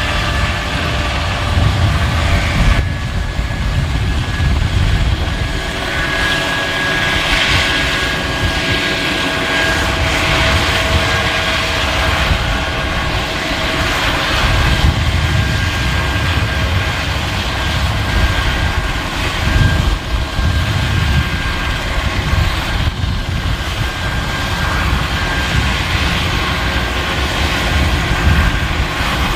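Eurocopter AS365 N3 Dauphin helicopter running on the ground, its twin turboshaft engines whining with several steady tones over the low noise of the turning rotors. The sound dips briefly about three seconds in, then carries on steadily.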